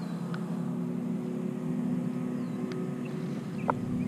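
A steady low mechanical drone, like a distant engine running, with faint bird chirps and a few light clicks.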